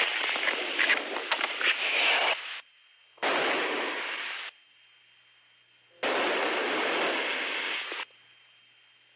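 Bursts of static-like hiss from the crew's intercom channel, cutting in and out abruptly. The first burst lasts about two and a half seconds and has scattered clicks in it; two more of about one to two seconds follow. Between the bursts only a faint steady tone and hum remain.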